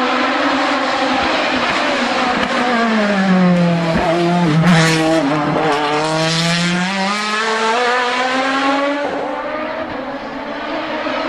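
Sports-prototype race car's engine passing close by at a hillclimb bend: the engine note drops as the car slows into the corner, stays low while it passes, then climbs again as it accelerates away uphill.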